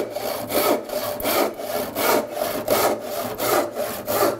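7-point Spear & Jackson handsaw, sharpened for crosscut, sawing across the grain of a wooden board in steady back-and-forth strokes, about two a second.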